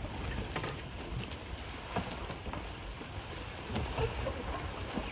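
Outdoor water ambience: a steady hiss with a low rumble, broken by scattered faint knocks and splashes of canoe polo kayaks and paddles on the water.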